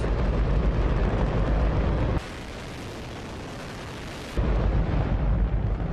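Hydrogen–oxygen rocket engine firing: a loud, steady rush of noise, heaviest in the bass. About two seconds in it drops suddenly to a quieter, thinner hiss for about two seconds, then the full deep rush returns.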